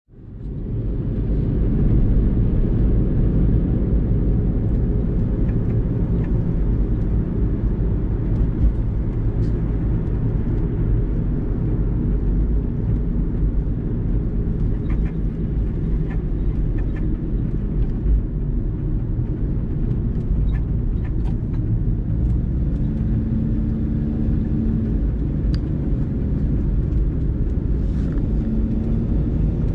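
An engine running steadily with a low rumble, fading in at the start, with a few faint ticks over it.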